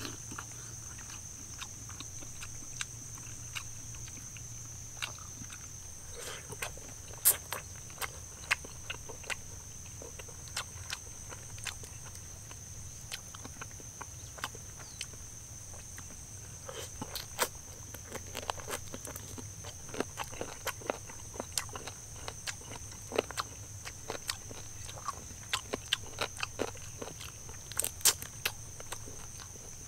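Crunching bites and chewing of a crispy deep-fried chicken drumstick: sharp crunches scattered throughout, thicker in the second half. A steady high-pitched drone runs behind it.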